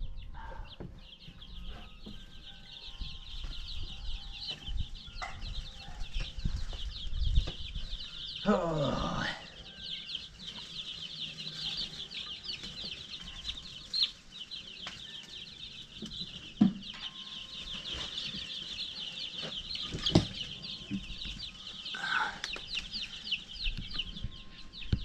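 A brooder full of baby chicks peeping without pause, a dense chorus of rapid high cheeps. A few sharp knocks and shuffles come through as the box is stepped into. About eight seconds in there is a brief sound sliding downward in pitch.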